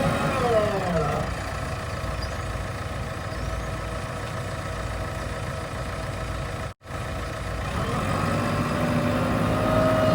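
Heavy diesel machinery engine running steadily, with a brief wavering voice-like sound in the first second. The sound cuts out abruptly for an instant about seven seconds in, then the engine carries on with a steadier note.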